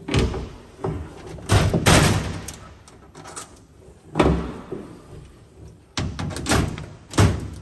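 Pneumatic Huck lockbolt tool installing huckbolt fasteners in sheet metal: a series of sharp, loud bangs at irregular intervals, each as the tool pulls and swages a fastener and snaps off its pin.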